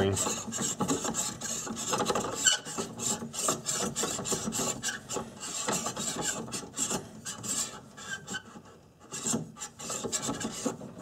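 KeyMod free-float handguard being screwed by hand onto an AR-15 barrel nut: a dry rasping scrape of metal threads and hands on metal, in quick repeated strokes that ease off briefly near the end.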